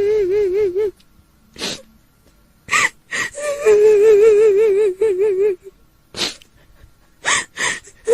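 A woman's high, trembling wail, the crying voice of a kuntilanak ghost, held on long wavering notes. The wail breaks off about a second in and comes back, a little higher at first and then settling, for about two seconds. Sharp gasping breaths come between the notes, and the wail starts again at the very end.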